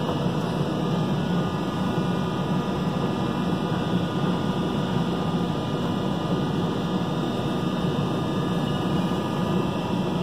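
Steady background hum and hiss, even throughout with no distinct events, like the ventilation of a large room.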